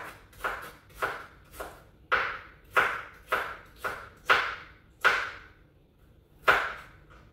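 A knife slicing okra pods on a cutting board: steady chopping knocks about twice a second, with a short pause near the end.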